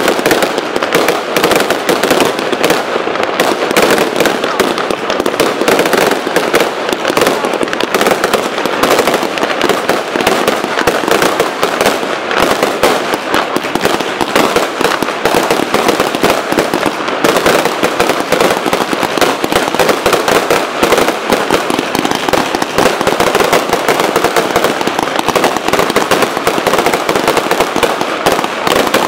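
Aerial fireworks display: a dense, unbroken barrage of bangs and crackling.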